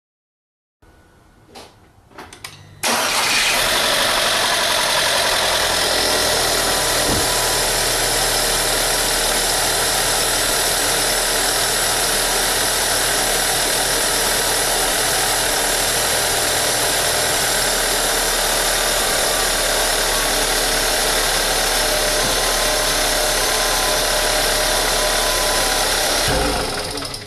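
2009 VW Golf engine started after a fresh oil and filter change: a few clicks, then the engine catches about three seconds in and idles steadily, and is switched off just before the end.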